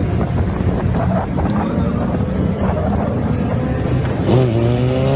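Motorcycle engine running steadily, with wind noise on the microphone; about four seconds in the engine revs up, its pitch rising.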